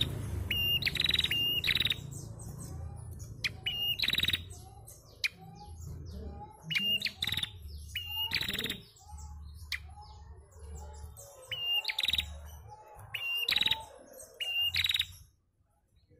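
Female prenjak, a small songbird, calling in repeated bursts: each is a short high piping note followed by a quick buzzy trill, about eight times over. A low rumble runs underneath, and the calls stop shortly before the end.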